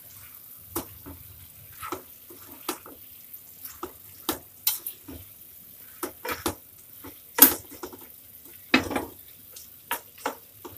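A spatula stirring and scraping chunks of cooked pumpkin curry around a nonstick kadhai, making irregular scrapes and knocks. The two loudest come about seven and nine seconds in.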